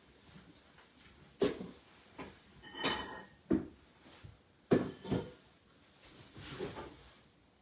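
A handful of sharp household knocks and clunks, about five in all, with a short ringing scrape near the middle, like things being handled and set down in a small room.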